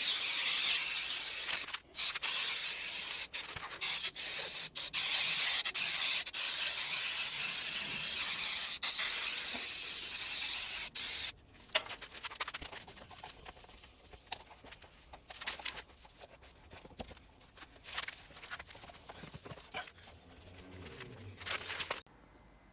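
Aerosol silicone spray hissing in long bursts, with a few brief breaks, for about the first eleven seconds. It then stops suddenly, and quieter scattered rubbing sounds follow.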